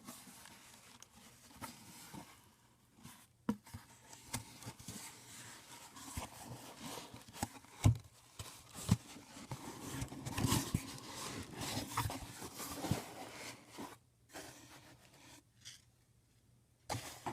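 A cardboard box and its packing being opened and handled to unpack a hat: irregular rustling and scraping with a few sharp knocks, busiest in the middle and quieter near the end.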